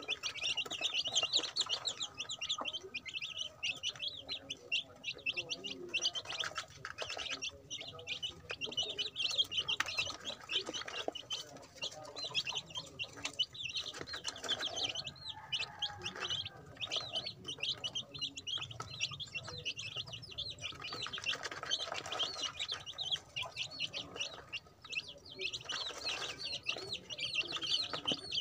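A brood of young chicken chicks peeping continuously, many rapid high chirps overlapping, with light scratching and pecking in gravel.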